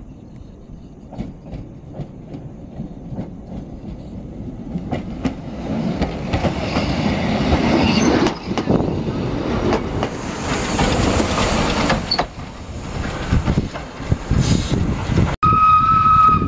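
Steam train passing close by: wheels clicking over the rail joints, growing louder into a heavy rolling rumble and hiss as the wooden carriage goes by. Near the end, after a break, a train whistle sounds one steady note.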